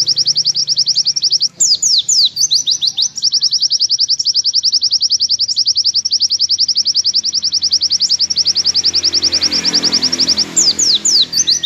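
White-eye (pleci) singing its long 'nembak' song: a high, rapid trill of about a dozen repeated notes a second. It breaks off twice, about one and a half seconds in and again near the end, for a few quick down-slurred whistles.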